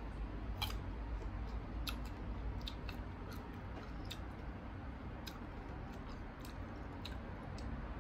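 Chewing crisp unripe green mango: irregular short crunchy clicks, a dozen or so over several seconds, above a steady low hum.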